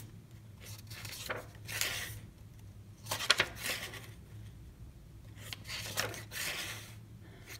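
Thin paper pages of a small Canson A6 sketchbook being turned and handled: several brief rustles and flicks, the sharpest about three seconds in, over a low steady hum.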